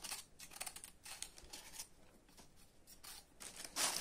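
Kitchen knife paring a globe artichoke: a string of short, faint scraping cuts as the blade trims the tough outer layer, with a louder rustle near the end.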